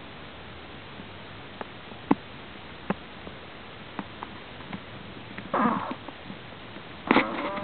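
Prairie dog snoring in its sleep, a sound the uploader calls strange and says is not from an odontoma: a run of short sharp clicks, then a louder noisy breath about five and a half seconds in and a louder one still near the end.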